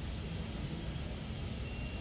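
Steady hiss of background noise with no distinct events, joined near the end by a faint, high, steady tone.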